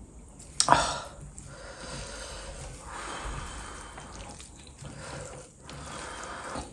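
Bare fingers squishing and mixing fish curry gravy into rice, a wet squelching that goes on and off, with a short sharp knock about a second in.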